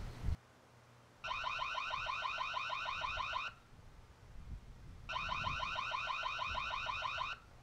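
Reolink Lumus spotlight camera's built-in siren sounding through its small speaker: two bursts of a rapidly pulsing alarm tone, about nine pulses a second, each burst a little over two seconds long with a short pause between.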